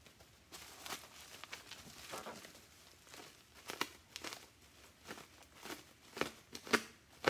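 Plastic bubble wrap crinkling as it is handled and pressed by hand, with irregular crackles and a few sharper snaps in the second half, the loudest near the end.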